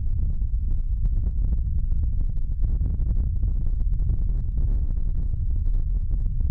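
A steady low rumble with no distinct events.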